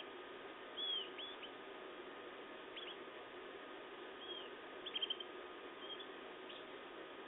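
Canaries giving short, high chirps and cheeps, scattered and irregular, with a quick run of several cheeps about five seconds in, over a steady background hum.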